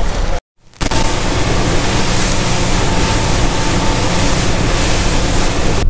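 Outboard-powered center-console boat running fast across open water: a steady engine drone under loud rushing wind and water noise. The sound drops out briefly about half a second in, then runs on steady.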